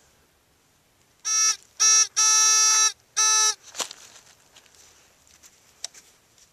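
A metal detector's electronic tone beeping four times at one steady pitch, short, short, long, short, signalling metal in the soil. A sharp click follows, then fingers scratching through dirt and roots.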